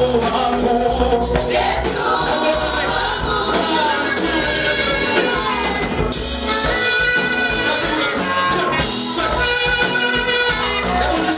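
A worship team singing a gospel praise song with instrumental accompaniment, the music continuous and steady.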